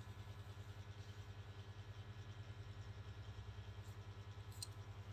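Hands patting rapidly and evenly on a patient's back through a cloth, heard as faint dull thumps several a second: chest physiotherapy percussion to loosen phlegm.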